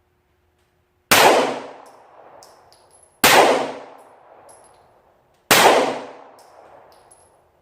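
Three slow, deliberate shots from a 9mm Glock 19 Gen4 pistol, about two seconds apart, each loud crack trailing off in a long echo.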